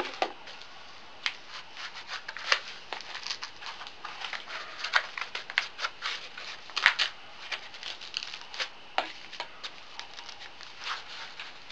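Handling noise from a magnet-fishing magnet and its packaging: an irregular string of sharp clicks, taps and crinkles.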